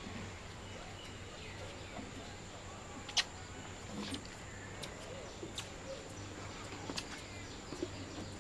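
Footsteps on the steel walkway of a railway truss bridge, as scattered sharp clicks about a second apart, over faint distant voices and a steady high whine.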